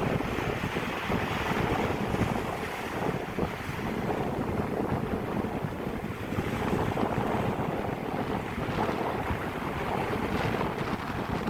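Indian Ocean waves washing steadily, with wind buffeting the microphone.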